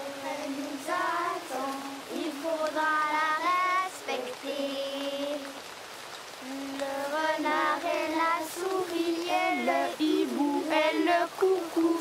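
Young children singing, their voices high, with some notes held about a second and others sliding in pitch.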